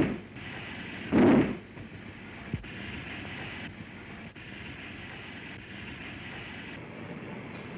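Steam locomotive moving off slowly: two heavy exhaust chuffs a little over a second apart, then a steady hiss.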